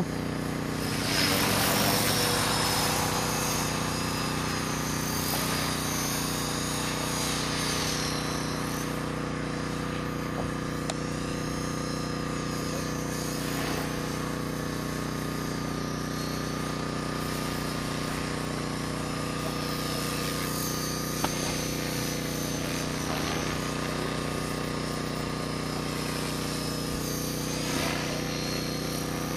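Align T-Rex 450 XL CDE electric RC helicopter in flight: a steady rotor buzz under a high motor whine that rises and falls in pitch as it flies around.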